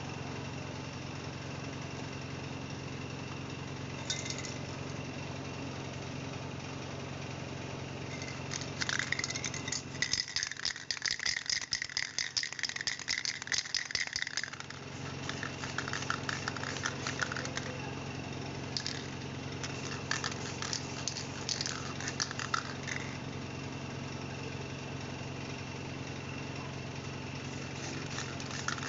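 Aerosol spray can of lacquer or paint being shaken, its mixing ball rattling and clinking in quick strokes. It comes in two long spells, from about eight seconds in and again from about sixteen seconds, with a further spell starting near the end, over a steady low hum.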